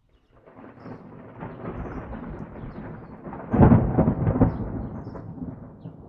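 Thunder rumbling, building from about half a second in to its loudest clap at about three and a half seconds, then slowly fading.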